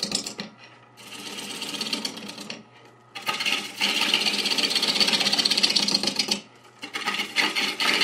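Deep-fluted bowl gouge cutting into an out-of-round green-wood bowl blank spinning on a JET lathe at about 500 RPM: a fast, even rattle as the uneven, flat-sided surface slaps against the tool. The cut breaks off briefly three times, about a second in, near three seconds and past six seconds.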